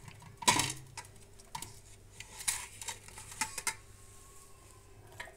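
Steel kitchenware clinking and tapping as garlic cloves are picked off a steel plate and dropped into a steel mixer-grinder jar: a handful of short, sharp clicks, the loudest about half a second in.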